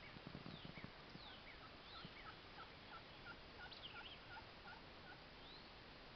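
Wild turkey calling in a run of about a dozen short, evenly spaced notes, about three a second, with songbirds chirping faintly in the background. A brief low rumble comes right at the start.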